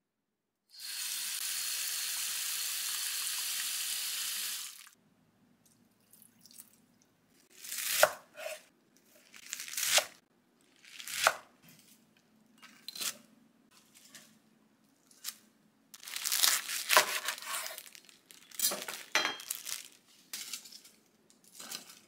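A kitchen tap runs steadily for about four seconds, washing cut cabbage. Then come a string of crisp rustles, crackles and knocks as cabbage leaves are handled and dropped from a colander into a pot.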